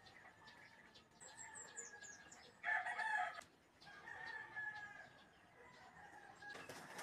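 Rooster crowing, strongest about three seconds in, with a weaker drawn-out crow after it. A small bird gives a quick run of high chirps, falling in pitch, a little after one second in.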